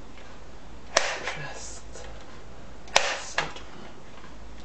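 Crosman M4-177 multi-pump air rifle being pumped by hand, two pump strokes about two seconds apart, each a sharp clack followed by a softer click, charging the rifle's air reservoir before a shot.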